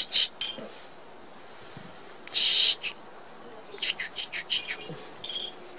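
Scraping and clicking on hard plastic as a puppy paws at and mouths a plastic water dispenser: two short, loud scrapes, then a quick run of small clicks near the end.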